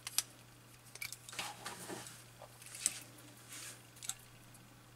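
Irregular small metallic clicks and short scrapes from a Soviet naval ship's wall clock movement being handled and worked on by hand, metal parts and tool touching the plates. No steady ticking rhythm.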